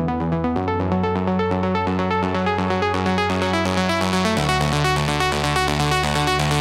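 Melodic house music: sustained synthesizer chords over a held bass note with a steady fast beat, the bass shifting to a new note about half a second in and again near two-thirds through.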